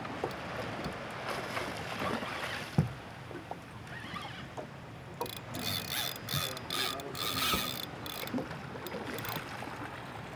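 Spinning fishing reel ratcheting and whirring for about three seconds midway through, as line is worked against a hooked fish. Underneath is a steady wash of wind and water noise, with scattered small knocks.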